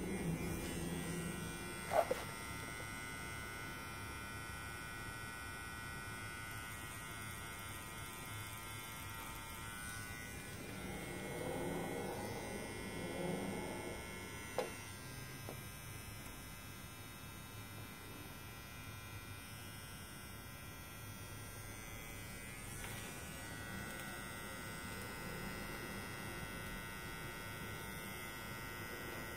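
Permanent-makeup tattoo pen's small electric motor buzzing steadily while it tattoos the eyebrows, with two short sharp clicks, about two seconds in and again about fifteen seconds in.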